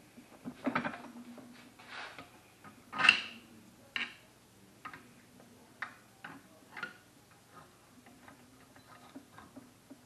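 Scattered small metal clicks and taps of hand tools on a part clamped in a bench vise, the loudest a sharp knock about three seconds in. A faint steady hum runs underneath.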